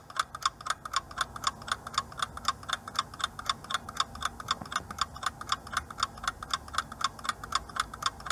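Ticking-clock sound effect counting down a 10-second answer timer, even sharp ticks at about four a second.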